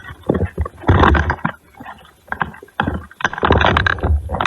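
Rumbling, rustling handling noise on a player-worn camera's microphone as the player moves, in two rough bursts: one about a second in and a longer one from about three seconds in.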